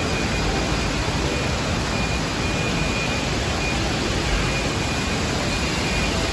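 Steady, even rushing noise of a large indoor atrium, with a faint high tone running through it.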